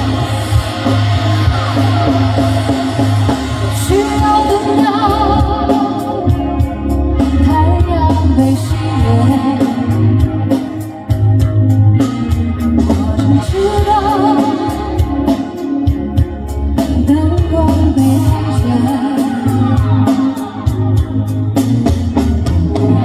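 Live rock band playing: electric guitars, bass and a drum kit with steady kick drum and cymbals, with a woman singing over it.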